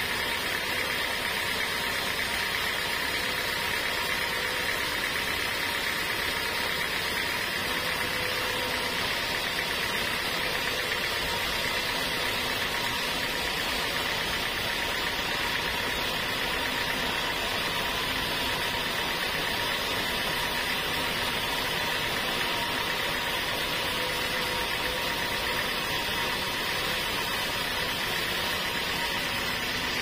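Band sawmill ripping lengthwise through a large mahogany log: the saw and its drive run steadily under load, with a constant high whine.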